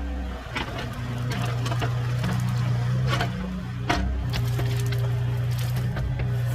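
Engine running steadily, its pitch dipping briefly about half a second in and again near four seconds, with sharp knocks and cracks scattered throughout.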